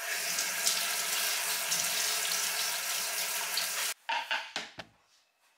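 Kitchen tap running in a steady stream as an apple is rinsed under it, shut off sharply about four seconds in. It is followed by a few light knocks as the wooden cutting board and apple are handled.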